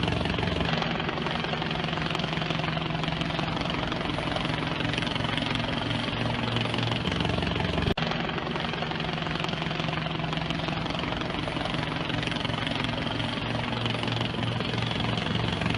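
A steady engine drone with a low hum under dense, even noise. It breaks off for an instant about halfway through and then carries on the same way.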